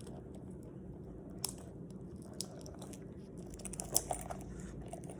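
Close handling noise as an item is taken out of its packaging: soft rustling and crinkling with a few sharp clicks, the loudest about four seconds in.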